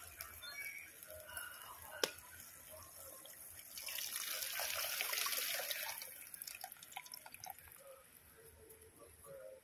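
Tamarind water squeezed by hand from the soaked pulp, pouring and splashing into a clay pot of liquid gravy, loudest for about two seconds near the middle, then dribbling and dripping from the fingers. A single sharp click about two seconds in.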